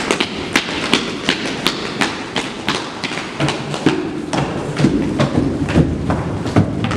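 Irregular run of sharp knocks and thuds, about two to three a second.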